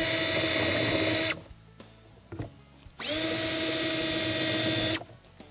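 Cordless drill running in two bursts: already spinning at the start and stopping about a second in, then spinning up again with a brief rising whine and running about two seconds before cutting off. The bit is etching pilot-hole marks into the concrete through the waterer base's molded guide holes.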